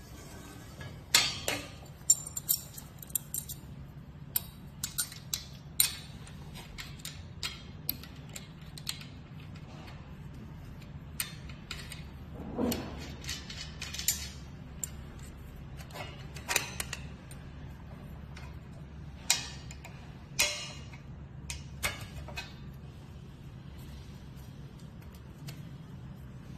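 Irregular clinks, clicks and knocks of metal frame parts being handled and fitted together, some sharp and ringing, spread across the whole stretch, over a low steady hum.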